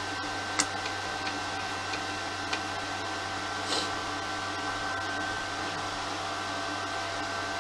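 Cooling fan of a Kedr MultiTIG 2000P TIG welding inverter running with a steady hum, switched on for testing after repair. A few sharp clicks and a brief hiss sound over it.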